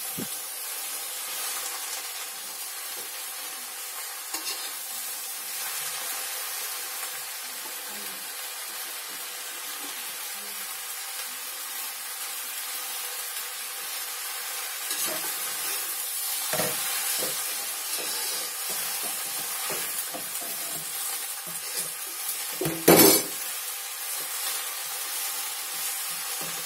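Water spinach sizzling as it stir-fries in a metal wok, stirred with a metal spatula that scrapes and knocks against the pan. There is one loud clatter of the spatula on the wok late on.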